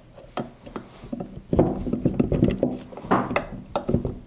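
Clicks and knocks of metal transmission parts as the gear selector shaft is worked down into a Honda XR250R crankcase, busiest from about a second and a half in, with a low steady tone under the clatter in the middle.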